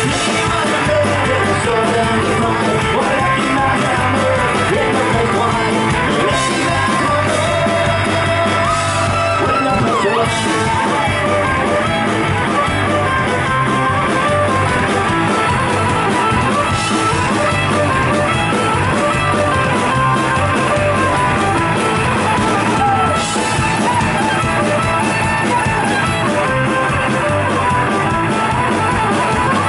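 Live folk-punk band playing an instrumental passage: a bowed fiddle carries the melody over strummed guitars, a mandolin and a drum kit, with steady loudness throughout.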